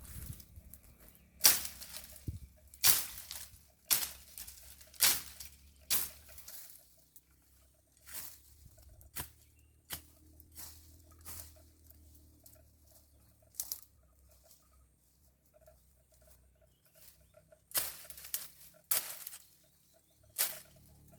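Weeds being cut by hand with a bladed tool: a series of sharp strokes about one a second. The strokes thin out in the middle and come closer together again near the end.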